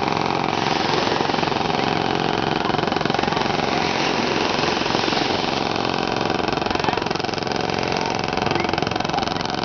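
Engine of a bangka outrigger boat running steadily with a fast, even chugging beat.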